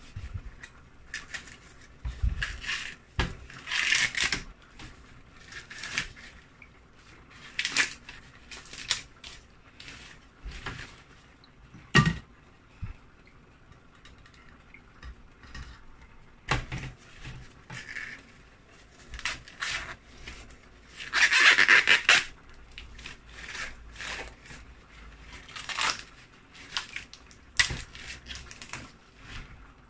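Fresh sweetcorn being husked by hand: the green husks tear and rustle in irregular bursts as they are stripped from the cobs, with an occasional sharp knock.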